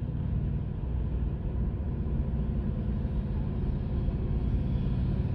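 Steady low rumble of a car's engine and tyres on the road while driving, heard from inside the cabin.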